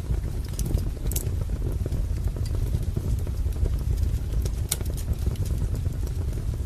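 Wood fire crackling in a fireplace: a steady low rumble of burning logs with irregular sharp pops and snaps, a couple of them louder.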